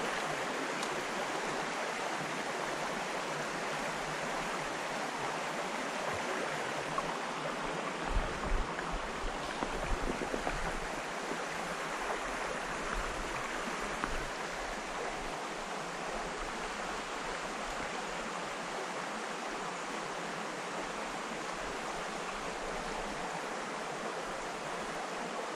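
Small river running over rocks, a steady rushing hiss. A few low thumps on the microphone come about a third of the way in.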